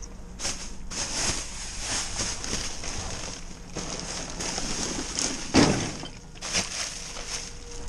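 Plastic trash bags crinkling and rustling as they are handled and pushed aside, with a louder thump about five and a half seconds in.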